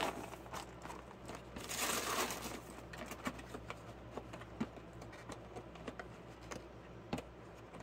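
Plastic cereal-bag liner crinkling and rustling as it is handled and folded back into the box, with a louder rustle about two seconds in and scattered small crackles after.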